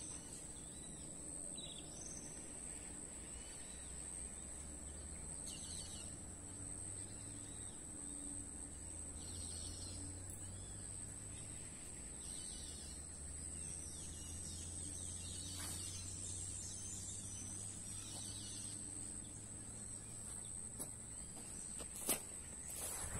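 Insects keeping up a steady high-pitched drone, with short high chirps now and then over a faint low rumble. A single sharp click, the loudest moment, comes near the end.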